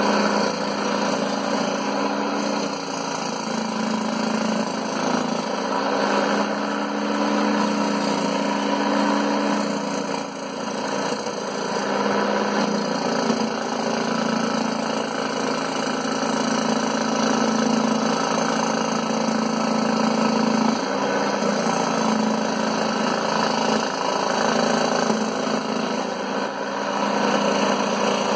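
Scroll saw running steadily while its blade cuts through MDF, giving a constant machine hum.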